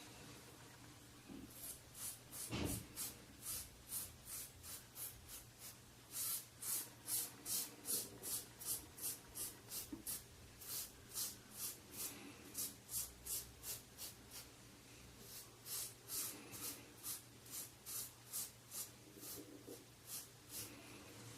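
Rockwell 6c safety razor scraping through a week's stubble on a head slicked with hair conditioner, in short quick strokes about two or three a second, with a couple of brief pauses.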